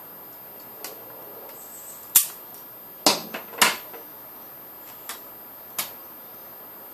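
Six or so sharp clicks and taps from hand tools and wires being handled during DIY wiring at the junction box of a solar panel, the loudest a little after two seconds in.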